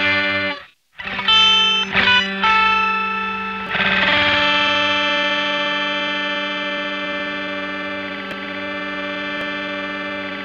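Music: a distorted electric guitar with heavy effects plays a few short, chopped chords. About four seconds in it strikes a chord that rings on and slowly fades.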